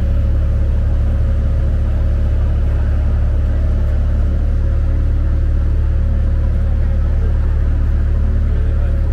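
Road traffic at a busy city intersection, cars moving through and turning, over a loud, steady low rumble. A faint steady tone runs under it.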